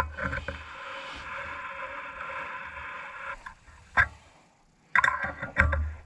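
Metal scraping as a part is screwed down into a tractor hydraulic valve against spring pressure, steady for about three seconds and then stopping. A sharp click follows, then a few knocks from handling the valve.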